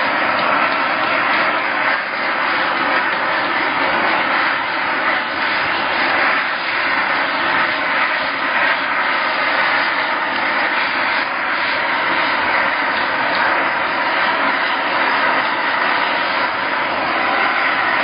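Steady, loud rushing noise of a machine running without letup.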